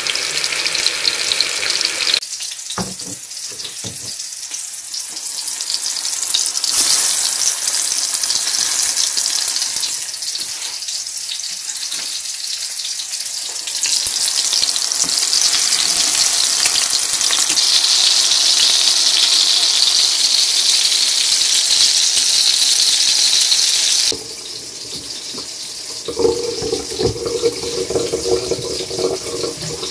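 Breaded fish cutlets of minced redfin sizzling in hot oil in a frying pan, a steady hiss that grows louder for a while after a few seconds. About six seconds before the end the sizzling cuts off suddenly, and a sponge is heard wiping a countertop.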